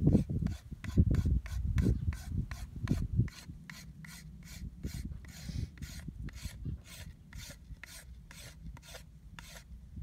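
Knife blade scraping the bark off a fresh dogwood stick in short, quick, regular strokes, with a few heavier low bumps in the first three seconds.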